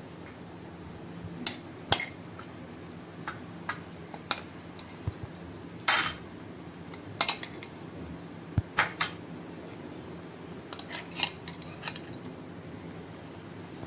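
Steel spoon clinking against glass bowls in scattered sharp taps as gulab jamun are spooned out of syrup into a glass serving dish, the loudest clink about six seconds in.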